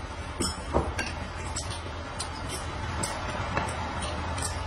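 Eating at a table: chewing, with scattered light clicks and clinks of chopsticks and a spoon against plates and bowls, over a low steady hum.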